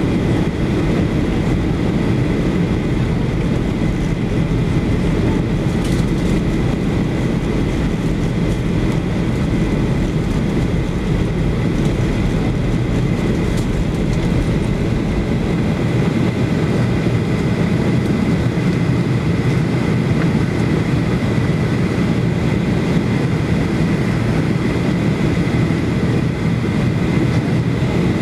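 Steady cabin noise inside a Boeing 737-8200 airliner descending to land: the even rush of its engines and the airflow past the fuselage, with a faint steady high whine.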